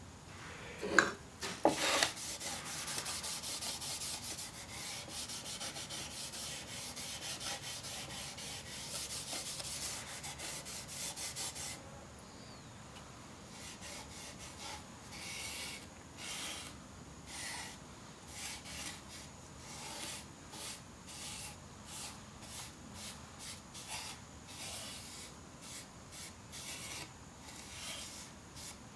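Wood stain being rubbed onto a bare wooden radio cabinet: a couple of knocks about a second in, then quick continuous scrubbing strokes for about ten seconds, then slower separate wiping strokes about once a second.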